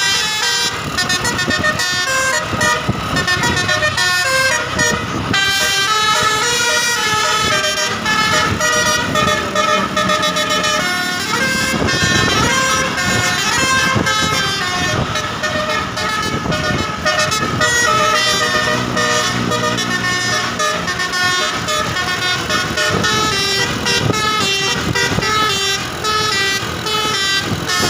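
Bus telolet horn playing quick multi-note melodies, the notes stepping up and down again and again, with the vehicle's engine and road noise underneath.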